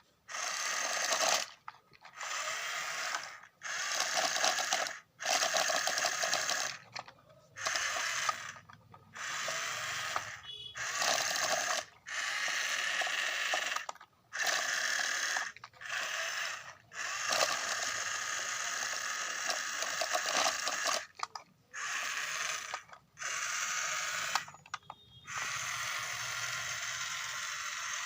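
Battery-powered toy wheel excavator's small electric motors and gears whirring in short bursts, starting and stopping over and over as its controls are worked.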